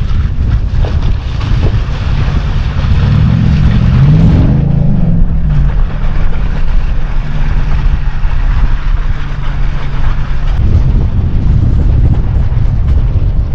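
Off-road truck's engine running under load, revving up and back down about four seconds in, with wind buffeting the microphone.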